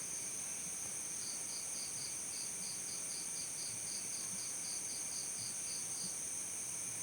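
Crickets singing: a steady, high-pitched continuous trill, with another cricket chirping in even pulses, about four a second, from just over a second in until about six seconds.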